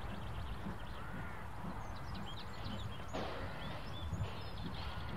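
Small birds chirping over a low rumble of wind on the microphone, with a short hiss of noise about three seconds in.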